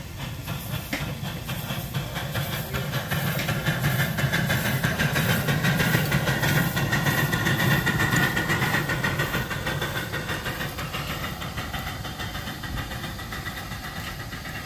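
1-inch-scale live steam locomotive running with rapid, even exhaust beats and its wheels rolling on the rails. It gets louder as it passes about halfway through, then fades as it pulls away.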